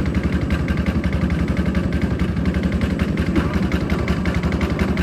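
Small fishing boat's propeller engine running steadily with an even, rapid beat.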